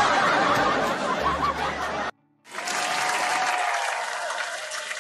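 Canned studio-audience laugh track, crowd laughter and applause after a punchline. It cuts off abruptly about two seconds in, and after a brief gap a second burst of crowd applause starts.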